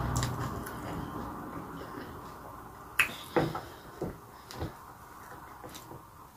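Mouth sounds of someone eating boiled corn on the cob: quiet chewing, with four sharp clicks or smacks about halfway through.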